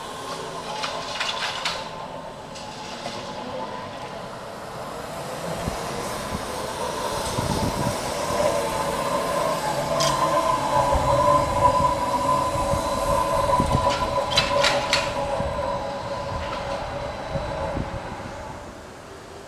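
New Flyer electric trolleybus passing by: a steady electric whine with tyre and road noise grows louder, peaks about halfway through as the bus goes past, and fades near the end. Two short bursts of sharp clicks, one near the start and one about three-quarters through.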